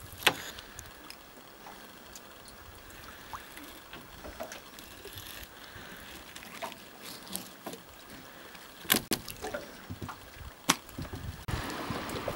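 Knife filleting a fish on a plastic cutting board: a few sharp taps and clicks of the blade against the board over a quiet background of water sounds. Near the end, wind rumbles on the microphone.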